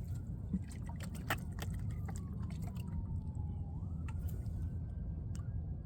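Low steady rumble with scattered drips and small clicks, likely water and handling as a freshly caught fish is dealt with on deck. A faint thin tone slides down in pitch about two seconds in, then rises and holds near the end.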